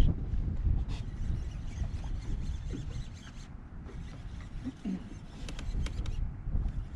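Wind buffeting the microphone as a steady low rumble, with a few faint clicks and ticks.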